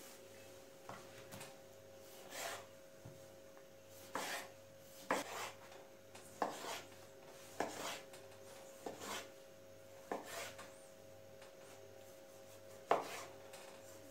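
Kitchen knife dicing tomatoes on a wooden cutting board, the blade knocking on the board about once every second or so, with a short pause near the end.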